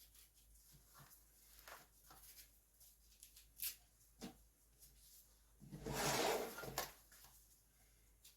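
Kitchen handling sounds from diced pear and sugar being layered into a glass jar: scattered light clicks and taps, with one louder noisy pour lasting about a second, about six seconds in.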